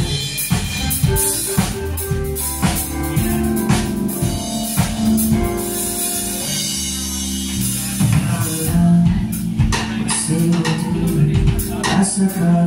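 Live band playing: a drum kit keeping the beat over a bass line and electric keyboard chords.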